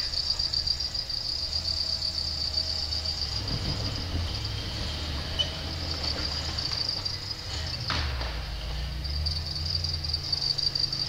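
Insects chirring in a steady, high, unbroken drone, over the low rumble of an off-road vehicle's engine that rises a little in pitch near the end.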